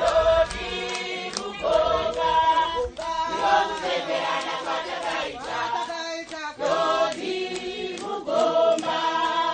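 A group of women singing together in sung phrases, a choir-like chant.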